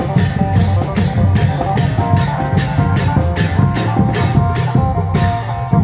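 Live Isan klong yao long-drum band playing: deep drum strokes and a steady beat of sharp percussion strikes, about two or three a second, under a plucked melody line.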